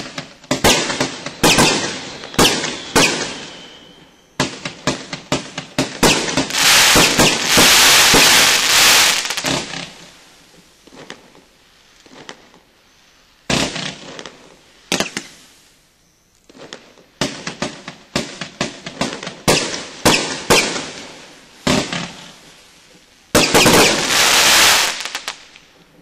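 A 30-shot consumer fireworks cake (Winda's Purple Power) firing: a long string of sharp launch thumps and bursts in uneven volleys. The shots run together into a dense stretch about a third of the way through and again near the end, with quieter gaps between volleys.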